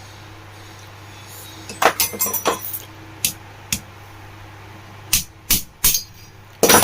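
Metal-on-metal tapping on a table fan motor's end cover to drive out its shaft bush: a quick cluster of sharp clinking taps about two seconds in, two single taps, then several harder strikes near the end.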